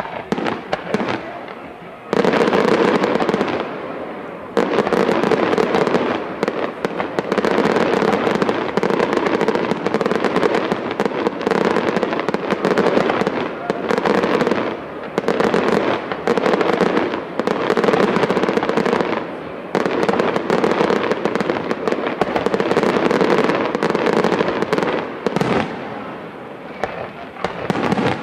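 Aerial firework shells bursting in rapid succession, with crackling stars. Sparse bangs at first, then from about two seconds in a dense, near-continuous barrage broken by a few brief lulls.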